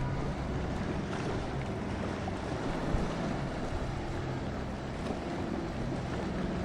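Boat engines running steadily, mixed with waves and wind noise on the microphone.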